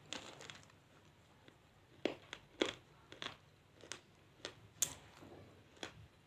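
Dry multani mitti (Fuller's earth clay) crunching and snapping: a string of separate sharp crackles at irregular intervals, a few louder ones among them.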